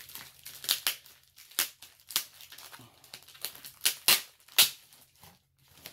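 Bubble-wrap packaging being pulled apart and unwrapped by hand: a string of separate sharp crinkles and tearing sounds, the loudest a little after four seconds in.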